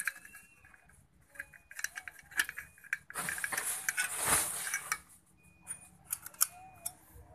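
Metal parts of a small two-stroke brush cutter engine clicking and clinking as they are handled, with a denser scraping rasp about three to five seconds in while the muffler is worked loose from the cylinder and pulled off.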